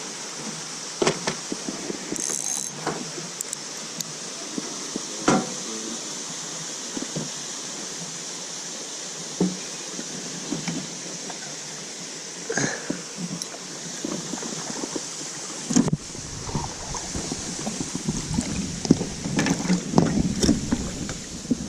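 Steady rush of river current with scattered sharp clicks and knocks from handling. About two-thirds of the way through, a low rumble of wind buffeting the microphone comes in.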